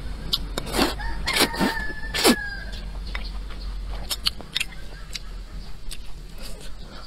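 Thick rice noodles being slurped and chewed, with several loud slurps in the first two and a half seconds and softer mouth clicks after. A rooster crows once in the background about a second in.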